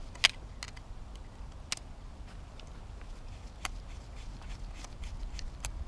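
Screwdriver tightening the brass mixture jet back into a small lawnmower-engine carburetor: a few sharp metallic clicks and ticks, the loudest about a quarter second in.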